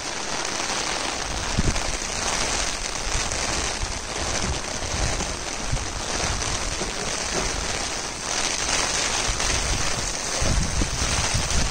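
Steady rain falling, a dense even hiss, with a few short low bumps on the microphone.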